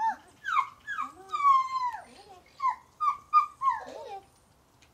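Dog whining and whimpering: a string of short, high-pitched calls that fall in pitch, one drawn out longer, stopping about four seconds in.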